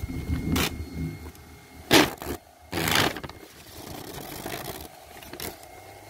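Small electric desk fan running with a steady low hum, its plastic blades shredding a thin sheet held against them in several short noisy bursts. The longest burst comes about three seconds in.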